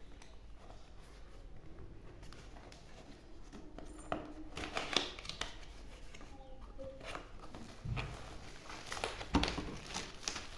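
Packaging being handled and unwrapped: crinkling and rustling with scattered small clicks and taps, busier from about four seconds in.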